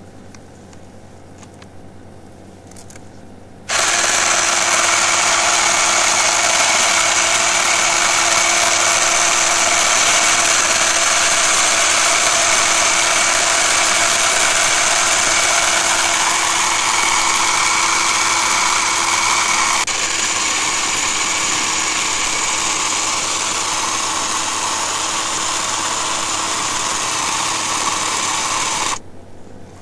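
Ryobi 10-inch battery chainsaw starting about four seconds in and running at a steady whine as it cuts into a tree trunk, then stopping abruptly near the end.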